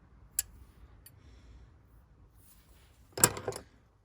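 Steel water pump pliers being handled: a single click about half a second in, then a short clatter of metal knocking on metal near the end.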